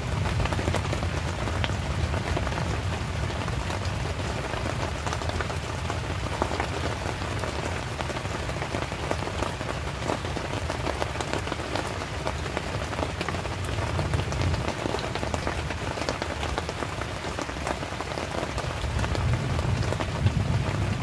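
Heavy rain falling steadily: a constant hiss of rain on the water and ground, dotted with many sharp, close drop hits.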